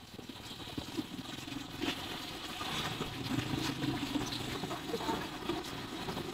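Hot oil crackling and sizzling in a deep frying pan as a wire basket of chips drains above it, with scattered small pops and a low steady rumble behind.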